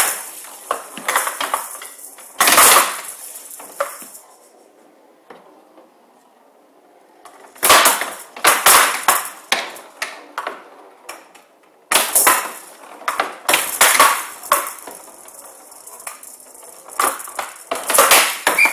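Showdown rally: the ball rattles from the metal pellets inside it as it rolls across the wooden table, with sharp knocks as the bats strike it and it hits the side walls. After a lull of a few seconds early on, two more quick bursts of hits and rattling follow.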